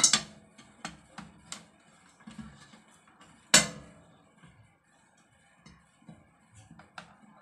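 Clicks and knocks of a turbo broiler's plastic lid and power cord being handled, with one loud knock about three and a half seconds in.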